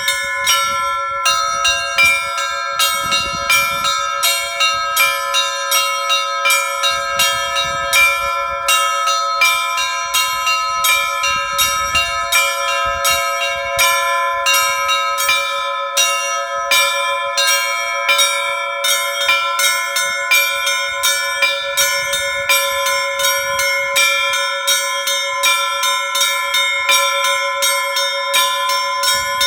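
Orthodox monastery church bells rung in a continuous peal. Small bells are struck rapidly and rhythmically, about two strikes a second, over steady ringing tones, and a deep heavy bell sounds every few seconds.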